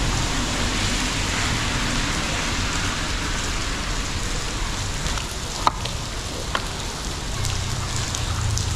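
A steady hiss, with a few light clicks of the plastic headset cover of a Yamaha Y15ZR being handled and aligned; the sharpest click comes about two-thirds of the way in.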